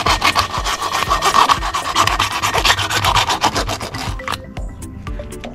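Hacksaw cutting lengthwise through a cooked lobster tail's shell with quick back-and-forth strokes, stopping about four seconds in; a few light clicks follow.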